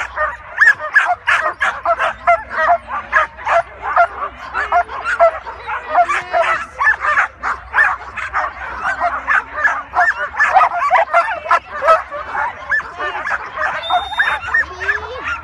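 Flyball dogs barking and yipping nonstop, several sharp barks a second.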